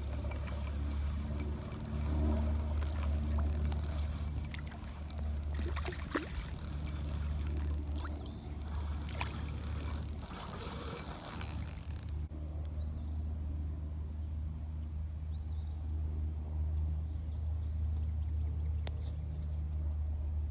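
Hooked catfish splashing at the surface as it is reeled in to the bank, with a cluster of splashes in the middle, over a steady low rumble.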